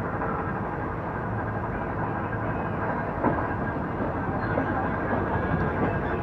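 Passenger train carriage running on the rails through a station, heard at an open window: a steady rumble of wheels on track, with a sharp knock about three seconds in.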